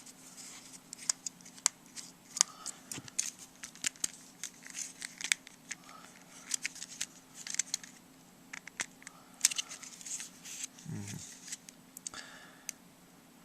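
Small plastic and metal phone parts being pried apart and handled: many sharp clicks and snaps mixed with short scratching and scraping, over a faint steady low hum.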